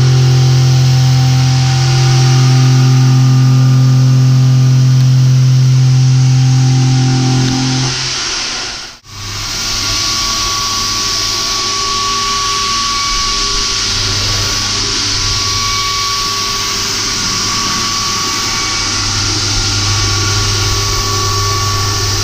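CNC machining center milling a metal block with an end mill: a loud, steady pitched machining drone that cuts off about nine seconds in, followed by a slightly quieter steady cutting noise with a thin high tone running through it.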